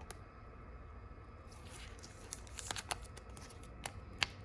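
Trading cards being handled: a soft rustle of card stock sliding, then several light clicks and taps as cards are flipped against the stack.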